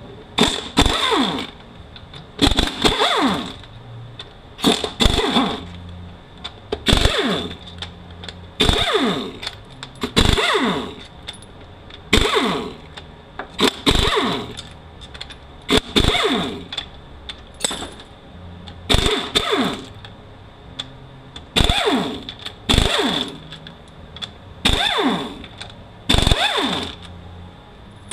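Pneumatic air ratchet running in short bursts, about one every two seconds, each a whir that falls in pitch, as it spins out the 10 mm bolts of a 4F27E automatic transmission case.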